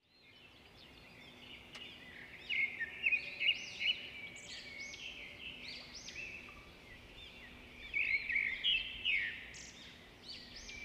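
Small birds chirping and twittering: many quick rising-and-falling calls, clustered most thickly about two to four seconds in and again around eight to nine seconds in.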